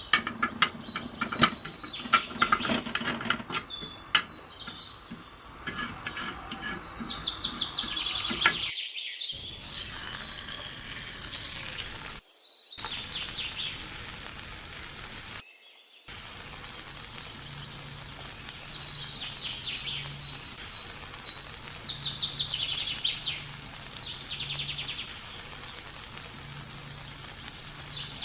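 Chicken frying with a steady sizzle. The first few seconds hold scattered clicks and knocks of kitchen work, and the sizzle is cut off abruptly a few times.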